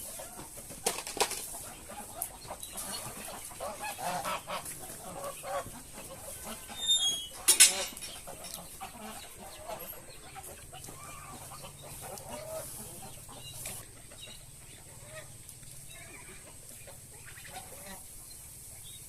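Farmyard fowl clucking and calling, with a louder burst of sound about seven seconds in.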